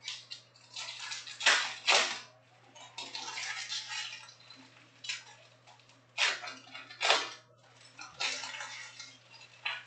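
Trading cards and their foil pack wrappers being handled: a run of short, crisp swishing rustles, several coming in quick pairs, with two longer stretches of crinkling in between as packs are opened and cards are slid out and dealt onto a pile.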